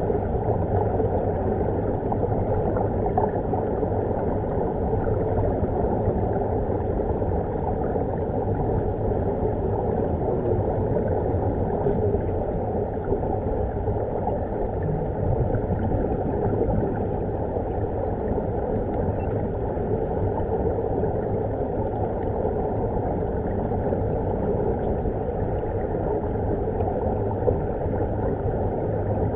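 Steady underwater rumble and rush picked up by a submerged camera, with air bubbling out of the SeaVenture diving helmets.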